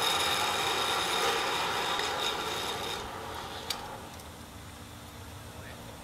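Rope or cable running fast through a descent device as a climber drops from the top of a ropes-course tower: a rasping whir with a steady high whine. It fades out over about three seconds, and a single sharp click follows.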